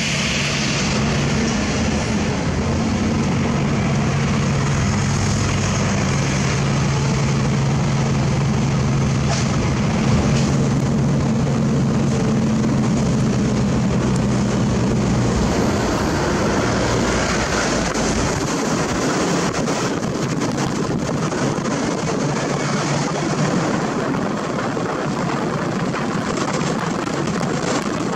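Heavy self-loader truck's diesel engine droning steadily with road noise while driving, heard from the cab. The engine drone drops away about two-thirds of the way through, leaving a steady rushing noise.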